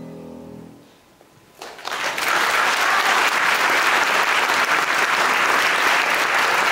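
A violin's last note cuts off, then a second of hush. Audience applause breaks out about a second and a half in and carries on steadily.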